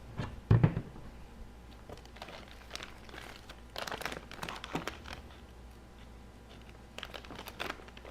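Plastic packaging crinkling and rustling as parts are handled and unpacked, with a single thump about half a second in.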